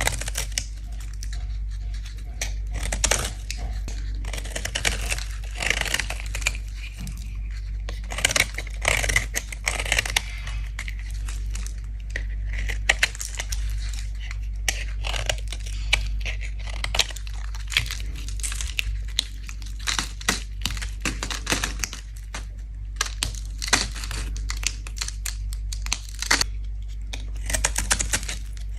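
A blade scraping a bar of soap in many short, irregular strokes, with a steady low hum underneath.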